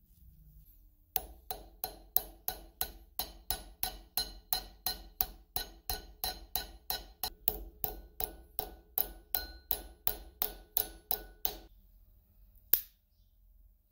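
Hammer blows on a small metal fishing reel part laid on a steel block, a steady run of about three strikes a second for some ten seconds, each ringing metallically. One more single knock near the end.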